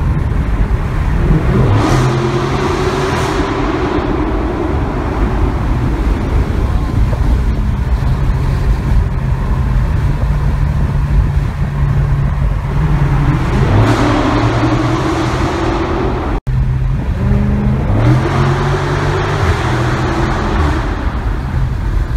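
2016 Dodge Charger SRT 392's 6.4-litre HEMI V8 with the mufflers deleted, heard from inside the cabin while driving. The exhaust note holds steady between three bursts of acceleration, when the engine note climbs: a little after the start, near the middle, and again a few seconds later.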